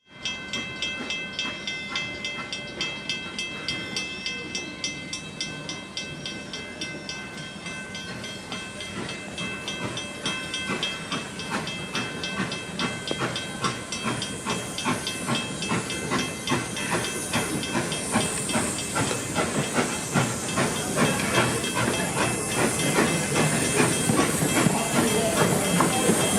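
Detroit & Lima Northern No.7, an 1897 Baldwin 4-4-0 steam locomotive, running with a quick, even beat over a steady hiss of steam, growing louder.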